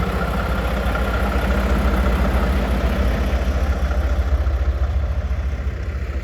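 Mack plow truck's diesel engine running steadily, heard from inside the cab, over a continuous rushing noise of the truck moving through wet snow.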